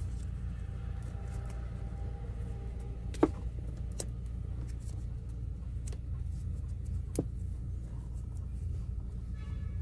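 Small clicks and rustles of hands joining and taping electrical wires with electrical tape, with a sharp click about three seconds in and another about seven seconds in, over a steady low rumble.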